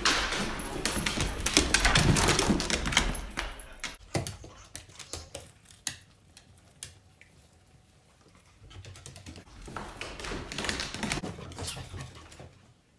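Bursts of rapid, irregular clicking and tapping: a dense run for about four seconds, a few scattered clicks, a quiet spell, then another burst later on.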